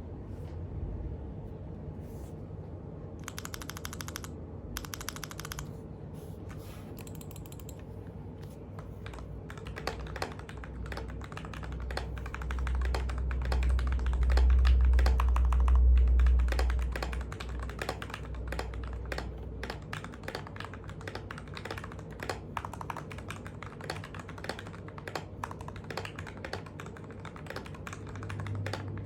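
Typing on a TM680 mechanical keyboard with lubed Gateron Milky Black linear switches, ABS OEM-profile keycaps and foam in the case and plate. It opens with two short, very fast flurries of keystrokes, then runs into steady, irregular typing. A low rumble swells for a few seconds in the middle and is the loudest part.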